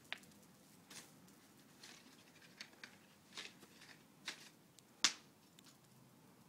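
Dry heather shrub burning in a metal fire basket, crackling with irregular sharp pops about once a second, the loudest about five seconds in.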